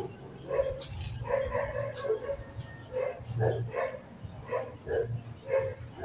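A dog barking, a rapid irregular run of short barks and yips.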